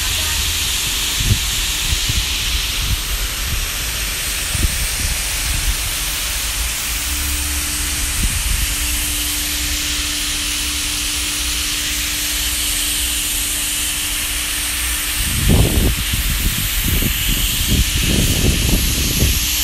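A steady high hiss runs under a low, steady machine hum that drops out briefly about eight seconds in. Scattered low bumps come early, and near the end there is a run of low, irregular rumbling.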